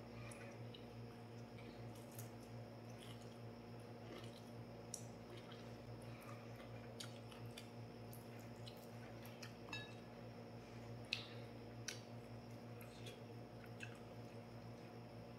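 Faint eating sounds: chewing and soft squishing of food eaten by hand from a bowl, with scattered small clicks and a sharper click about eleven seconds in, over a steady low hum.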